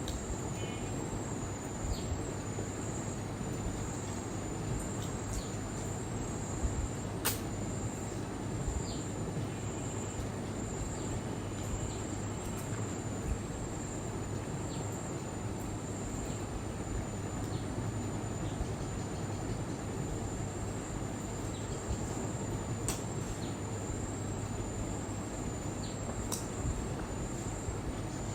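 Crickets chirping steadily in a high, evenly pulsing trill over steady background noise, with a few scattered sharp clicks.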